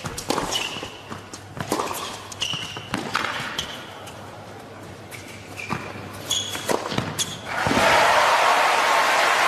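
Tennis rally on a hard court: racket strikes and ball bounces every second or so, with shoes squeaking on the court surface. The rally ends a little past halfway and the crowd breaks into loud applause and cheering.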